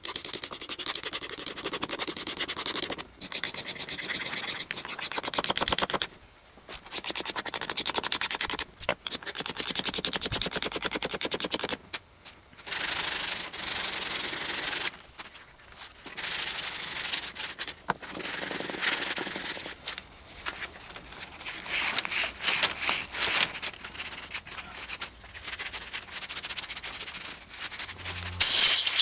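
Sandpaper rubbed by hand over the wood of an old box, in quick back-and-forth strokes. The strokes come in runs of a few seconds with short pauses between them, as the old finish and an engraved inscription are sanded off.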